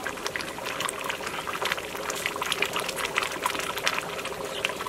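Pot of potato greens at a hard, rolling boil over a wood fire: steady bubbling with many small irregular pops.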